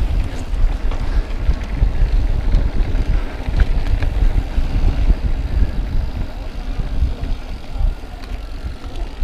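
Mountain bike riding over sandstone slickrock: a steady, uneven low rumble of tyres and bike on rock, mixed with wind buffeting the camera microphone.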